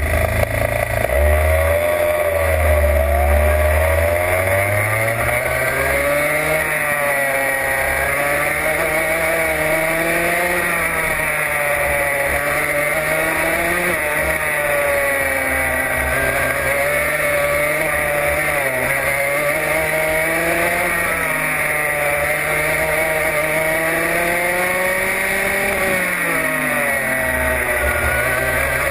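Racing kart engine heard from on board the kart: a low, uneven rumble for the first few seconds, then the pitch climbs as it pulls away and keeps rising and falling as the kart accelerates down the straights and lifts for the corners.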